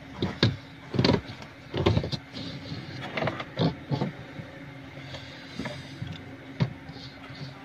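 Irregular knocks and clatter of tools and hands working on the underside of an upturned plastic washing machine while its drive belt is taken off, with a faint steady hum underneath.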